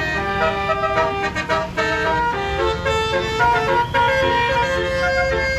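Tour bus's 'basuri' telolet multi-tone air horn playing a rapid melody of changing notes, over the low rumble of the bus engine.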